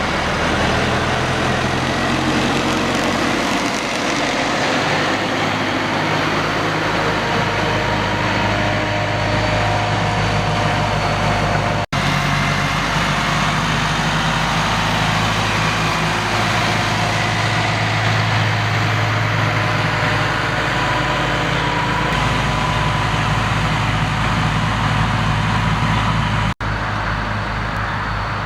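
Massey Ferguson tractor's diesel engine running steadily in the field, with the sound cutting out for an instant twice.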